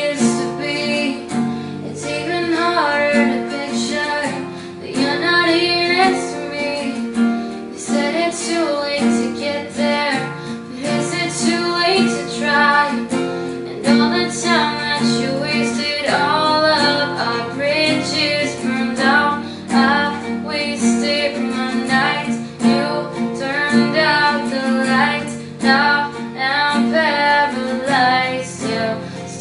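Female voice singing a pop song to a strummed acoustic guitar.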